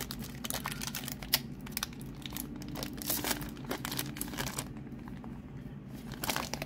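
Foil Pokémon card booster pack wrapper crinkling as it is opened and the cards are pulled out. The crackling is dense at first and dies down about two-thirds of the way in, leaving lighter handling noises.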